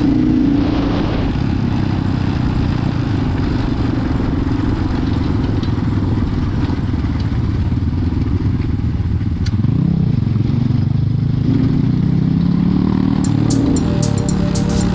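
Motorcycle engine running under way with a steady, heavy rumble; the engine note rises and falls about ten seconds in. Sharp clicks come near the end.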